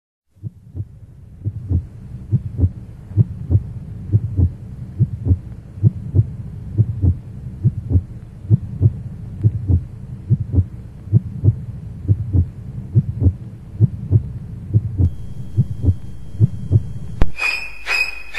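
Heartbeat sound effect: steady double thumps about once a second over a low hum. Near the end a sharp click cuts it off and violin music begins.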